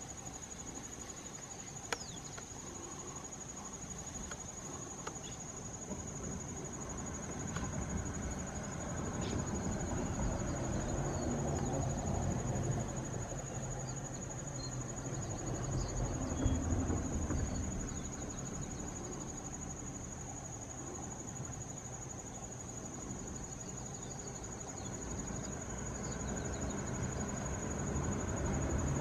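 Insects droning on one steady high pitch, over a low rumble that swells and fades in the middle. A single sharp click comes about two seconds in.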